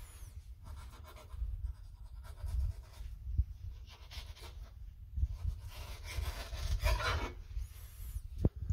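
Kitchen knife scraping along a fish fillet and a plastic cutting board as the skin is cut away from the flesh. The scraping comes in bouts, about four seconds in and again from about six to seven seconds, with a few small knocks of the blade on the board.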